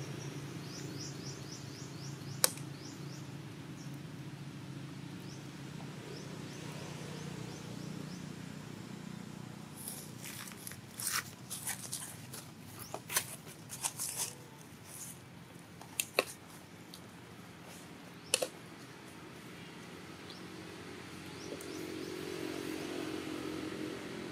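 Outdoor ambience with a steady low hum, a few faint high chirps near the start, and scattered sharp clicks and crackles, most of them bunched together in the middle.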